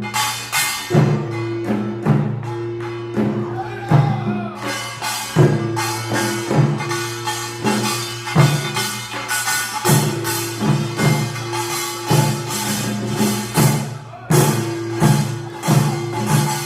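Korean nongak farmers' band percussion: rapid metallic gong and drum strikes, about two a second, over the steady ringing of gongs.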